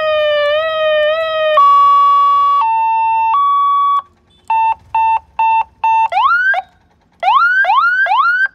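Seven-tone electronic police-style car siren sounding through its horn speaker, switching tones as the controller's buttons are pressed. It starts with a wavering wail, changes to a high-low two-tone, breaks off, gives about four short beeps, then a burst of quick rising whoops near the end.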